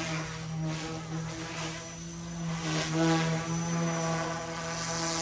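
Small electric RC helicopter in flight: a steady pitched rotor hum with overtones, and blade whoosh swelling and fading as the helicopter is thrown through manoeuvres.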